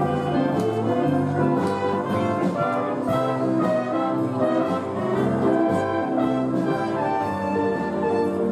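Youth wind band playing: brass and clarinets holding sustained chords together.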